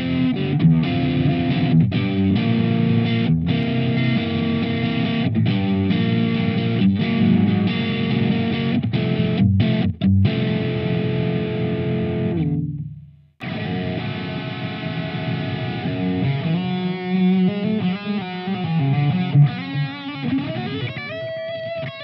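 SQOE SETL450 electric guitar with humbucker pickups played through a driven amp: dense distorted chords in a riff with short stops, ringing out and fading to silence about two-thirds of the way in. A new passage follows, with single-note lead lines and bends near the end.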